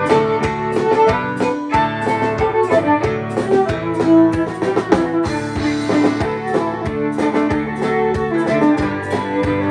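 Live band playing an instrumental passage: acoustic guitar, electric guitar and fiddle over a drum kit, with a steady beat.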